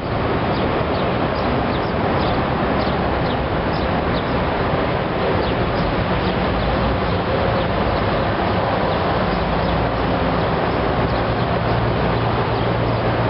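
Steady outdoor noise with a low engine-like hum, and small birds chirping now and then, mostly in the first half.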